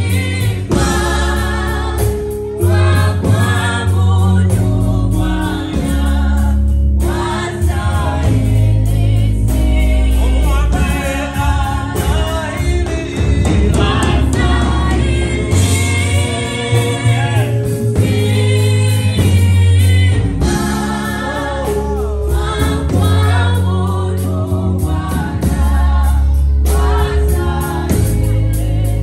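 Live gospel worship song: singers on microphones, a woman and then a man leading with vibrato, over keyboard accompaniment with deep sustained bass notes that change every second or two.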